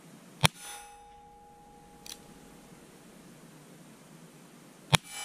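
Two .22 shots from a Ruger Bearcat single-action revolver, about four and a half seconds apart. Each is followed by the ringing of a hit steel target plate. A faint click comes between them.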